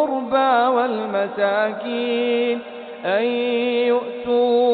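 Male voice reciting the Quran in the melodic tajwid style, drawing out long vowels with wavering, ornamented pitch. There is a brief breath-like dip past the middle, then the voice slides up into a new held note.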